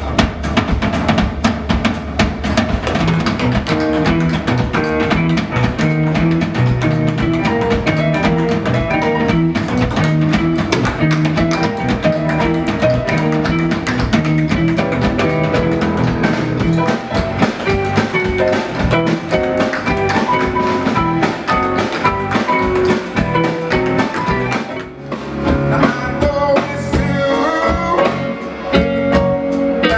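Live rhythm-and-blues band playing, with drum kit, electric guitar and bass. The music dips briefly about 25 seconds in and then carries on with a changed pattern.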